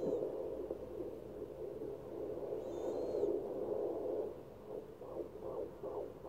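Handheld fetal doppler's speaker giving a steady whooshing static as the probe is moved over the belly. About four and a half seconds in it turns into a fast pulsing beat, about two and a half beats a second, the rate of a fetal heartbeat at 15 weeks.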